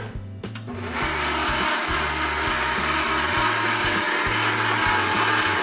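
KitchenAid stand mixer starting up about a second in and then running steadily, its flat beater mixing the wet ingredients for muffin batter (coconut oil, honey and water).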